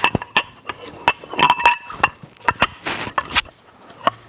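Irregular metallic clinks and taps of a Mahle piston with its rings being worked into a ring compressor, metal against metal, some knocks ringing briefly.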